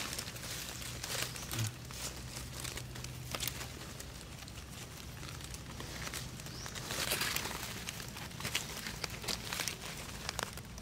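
Dry leaf litter crackling and rustling as a gloved hand and a knife dig mushrooms out of the forest floor, with many small scattered clicks and snaps.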